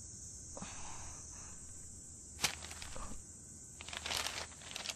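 Steady high insect chirring, cricket-like ambience, with a few soft rustles and one sharp click about two and a half seconds in.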